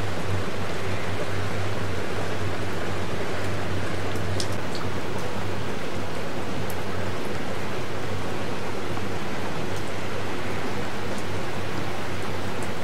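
Steady hiss of rain, with a low, even hum underneath from the boat's engine and a few faint ticks.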